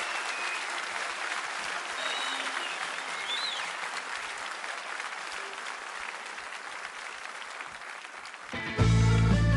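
Audience applauding with a few whistles, then about a second before the end a full band comes in loudly on the next song.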